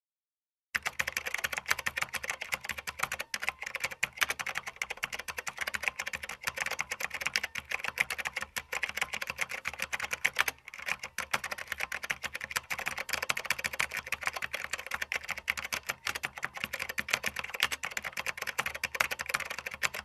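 Fast typing on a laptop keyboard: a dense, continuous patter of key clicks that starts just under a second in, with a short break about halfway through.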